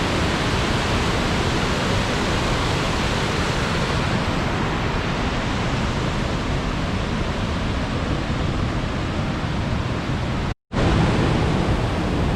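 A river running high after rain, rushing loudly and steadily, broken by a brief gap about ten and a half seconds in.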